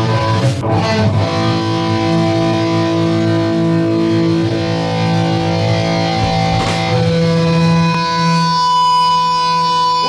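Distorted electric guitar letting long chords ring out at the start of a rock song. The chord changes about seven seconds in, and the new one rings with bright high overtones.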